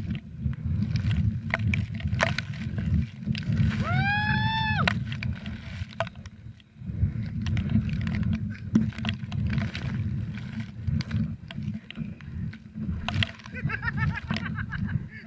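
Wind and water spray buffeting an action camera's microphone at speed on a banana boat ride: a steady, muffled low rush with scattered splashes of water. About four seconds in, a rider lets out one long shout that rises and falls.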